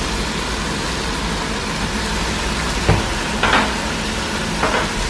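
Meat with chopped onions and tomatoes frying in an aluminium pot, a steady sizzle, with a few brief clicks about three seconds in and again near the end.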